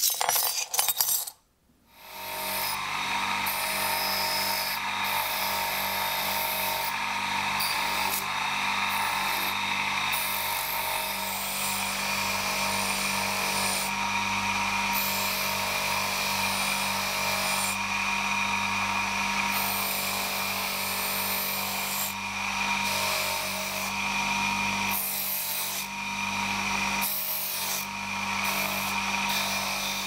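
Electric bench motor running with a knife blade held against its spinning wheel: a steady motor hum under a continuous rubbing, grinding hiss as the steel is worked. The grinding dips briefly a few times in the later part as the blade is lifted and repositioned. It starts about two seconds in, after a short loud sound and a near-silent gap.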